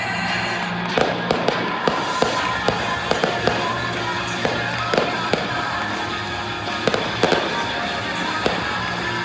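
Fireworks going off in a rapid, uneven series of sharp bangs and cracks, starting about a second in, over steady music playing.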